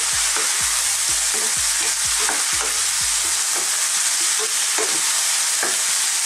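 Bean sprouts and chicharon sizzling in a hot wok as they are stir-fried with a wooden spatula. The spatula knocks and scrapes against the pan about twice a second, and the knocks thin out after about three seconds.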